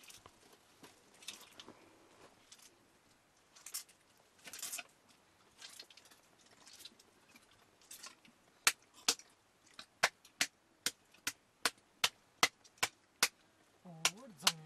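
Hands working a lump of fresh butter: soft, irregular wet squeezing sounds, then from about the middle a steady run of sharp slaps, two to three a second, as the butter is slapped between the palms to press it. A brief voice near the end.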